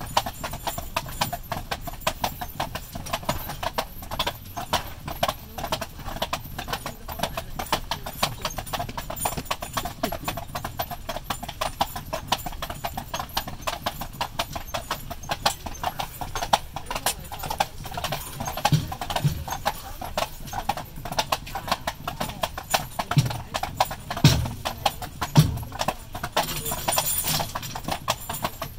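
Hooves of a pair of carriage horses clip-clopping steadily on an asphalt road, their beats overlapping in a continuous run, with a few louder low thumps in the last third.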